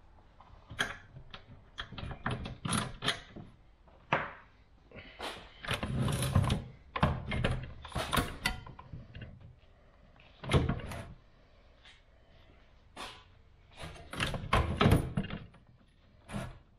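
Car seat's metal slide runners and release latch worked by hand: irregular sharp clicks and clunks, with a couple of longer sliding rattles as the seat is pushed along its rails.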